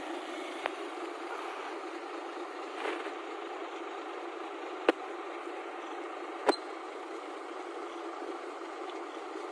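Heavy diesel engine idling steadily, with a few sharp knocks, the two loudest about halfway through.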